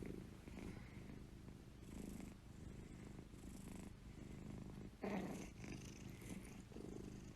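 Domestic cat purring softly close to the microphone, in slow swells about once a second, a little louder about five seconds in.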